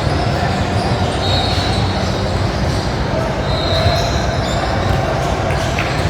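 Basketball game noise in a gym: a steady din of court and crowd sound, with two brief high squeals, one a little over a second in and one about three and a half seconds in.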